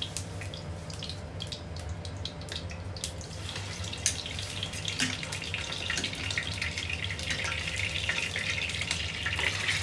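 Chicken frying in hot oil in a nonstick pan: scattered pops of the heating oil at first, then a denser sizzle and crackle once a piece of chicken is in, about four seconds in, growing busier toward the end.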